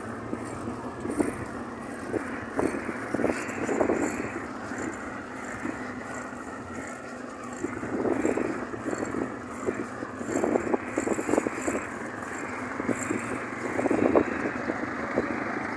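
Wind buffeting a moving microphone: a steady rushing noise with irregular louder gusts, over road and vehicle noise.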